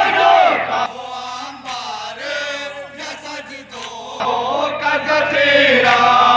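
A group of men chanting a devotional recitation, a loud lead voice with others joining in. It is loud at the start, drops back for a few seconds, and swells again from about four seconds in.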